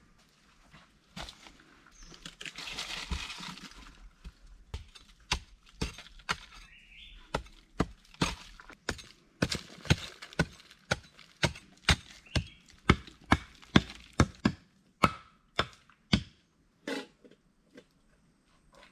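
A rustle, then a long run of sharp chopping strikes on wood, irregular at first and then steadier at about two a second, stopping about three seconds before the end.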